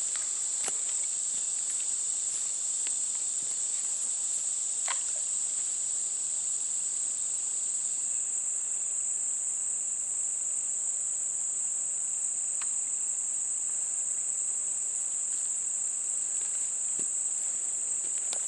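A chorus of insects keeps up one steady, high-pitched drone, with a few faint clicks scattered through it.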